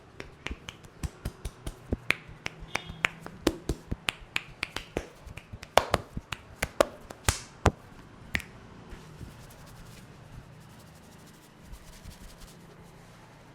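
Sharp clicks and slaps of a barber's hands striking the head during an Indian head massage, irregular, about three or four a second, giving way after about eight seconds to faint ticks and rubbing.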